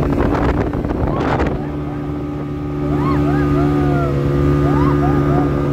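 Speedboat engine running at a steady pitch while the boat moves through the water, with wind buffeting the microphone and a brief gust about a second in. Short high warbling calls sound over the engine in the second half.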